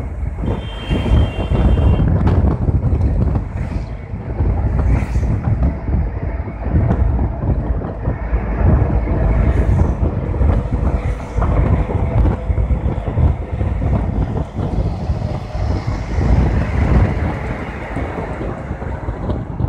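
Wind buffeting the microphone of a phone held at the window of a moving bus, over the deep rumble of the bus and the road traffic.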